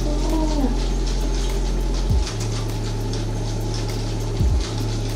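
Spinning reel cranked fast as line winds onto its spool, a steady whir with light regular ticking and a couple of soft knocks about two and four and a half seconds in.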